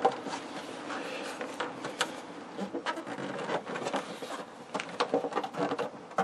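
Hands working a spring-tensioned trim band off the hard plastic cover of a Philco Predicta television's picture tube: plastic scraping and rubbing, with many small clicks and knocks.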